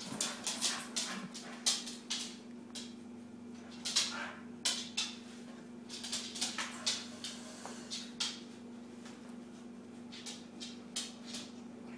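Miniature schnauzer puppy playing on a hardwood floor: an irregular run of quick clicks and scuffles from its claws and paws, mixed with small puppy whimpers.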